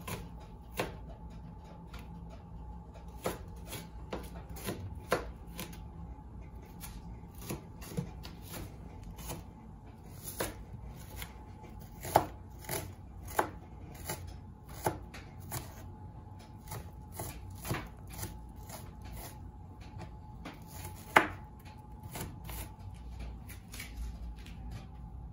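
Kitchen knife dicing red onion on a plastic cutting board: irregular knocks of the blade hitting the board, roughly one or two a second, with a few sharper, louder strikes. A faint steady hum runs underneath.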